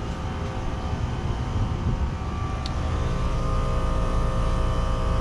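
A 2019 Trane XR14 3-ton central air conditioner's outdoor unit running just after start-up: the compressor and condenser fan make a steady, pretty quiet hum with a few faint steady tones, growing slightly louder over the few seconds.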